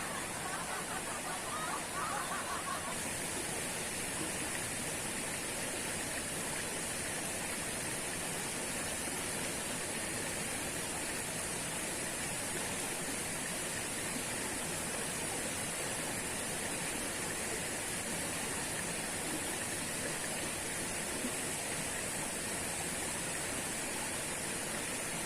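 Waterfall pouring steadily, an even rushing hiss of falling water.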